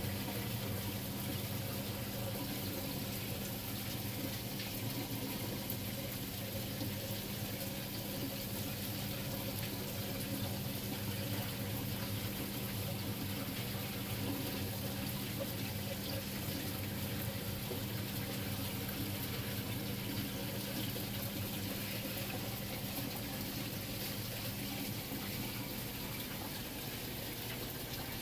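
Steady rush of circulating water in a saltwater aquarium system, with a low steady hum underneath.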